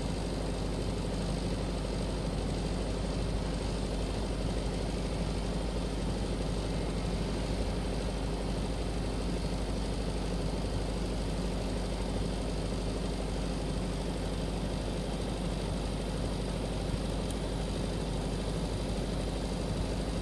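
Arc welding on a stainless steel flange: a steady, unbroken buzzing hum with an even hiss, held without a break.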